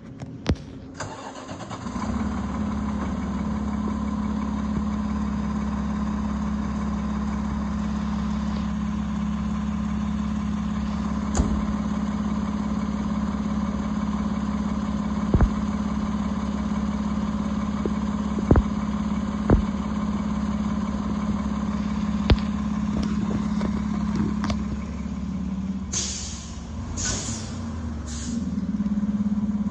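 Fire engine's diesel engine running with a steady low drone, broken by a few sharp clicks, with several short hissing bursts near the end.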